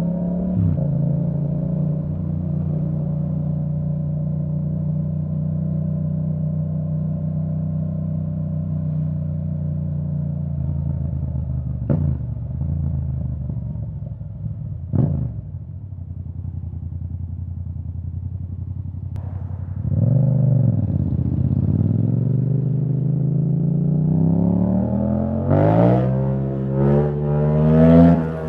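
2017 Yamaha MT-07's 689 cc parallel-twin through a de-baffled Akrapovic full titanium exhaust, running steadily at first with two brief sharp bursts of revs about twelve and fifteen seconds in. The revs then drop low, pick up about twenty seconds in, and climb hard near the end, rising and dropping in quick steps as it is upshifted.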